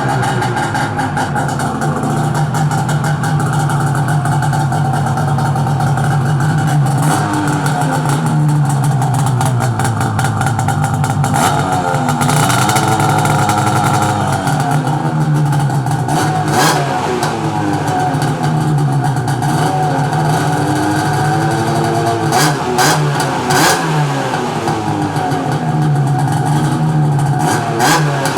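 2007 Ski-Doo MXZ Blizzard 800's two-stroke twin engine running through a performance exhaust can, idling with its pitch rising and falling a few times. A few short sharp clicks near the middle and end.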